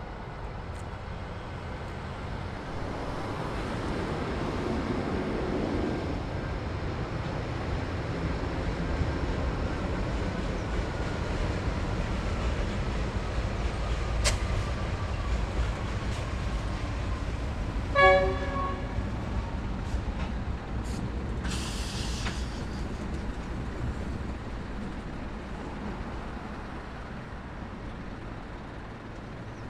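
Two Pacific National NR-class (GE Cv40-9i) diesel-electric locomotives running light, their engines rumbling as they pass, the sound building and then fading away. About two-thirds of the way through comes one short toot of the locomotive horn, the loudest sound.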